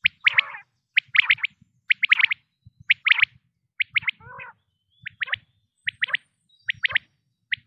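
Common quail calling: about one phrase a second, each phrase two or three short, sharp high notes, with a lower, rougher note in a few of the gaps.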